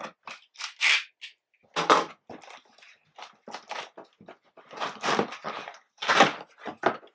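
Cardboard shipping box being opened by hand: short, irregular scrapes and rustles of packing tape and cardboard, with stronger rips about 1, 2, 5 and 6 seconds in.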